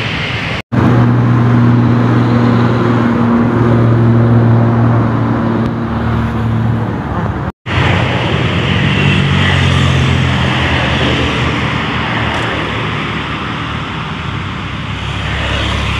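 Road traffic: motor vehicle engines running and cars passing close by on the road, with a steady engine hum through the first half. The sound breaks off briefly twice, at cuts.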